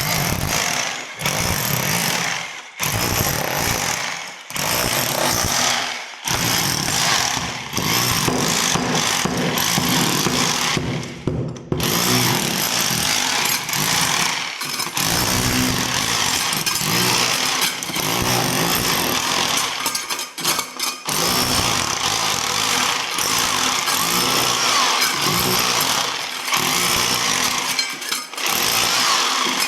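Electric drill running in bursts, stopping briefly every few seconds and starting again.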